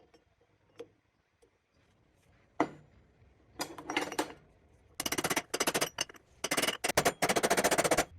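A new ball bearing being driven into a heated Triumph gearbox cover with a socket: a couple of single knocks, then from about halfway through, long rapid runs of sharp metal knocking in several bursts as the tight bearing is forced home.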